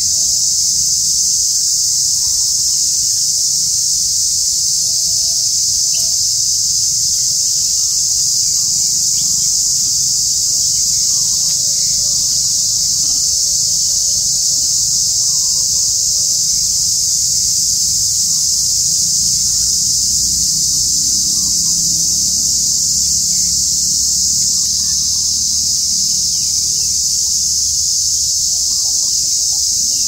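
Steady, loud, high-pitched droning of an insect chorus, unbroken throughout, over a low rumble.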